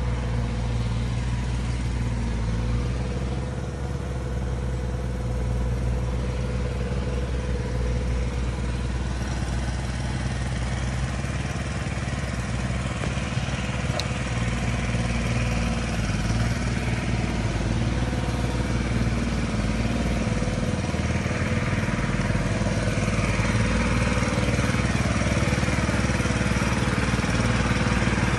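Small engine of a pump running steadily, draining a pond. It grows a little louder toward the end.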